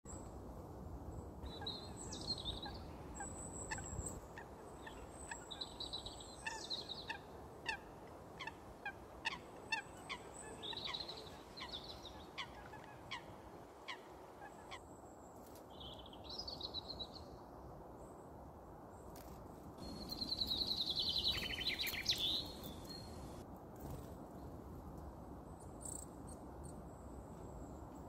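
Little grebes calling: short high calls and sharp ticks, with a longer rapid trill falling in pitch about twenty seconds in, the loudest sound.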